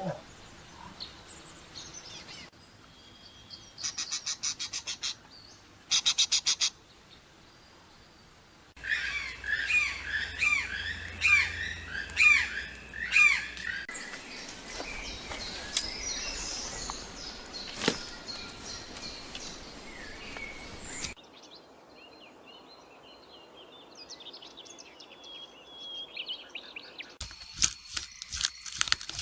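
A series of short, abruptly cut clips of bird calls: fast rattling trills, then a run of repeated chirping calls, then higher whistled notes and faint chirps.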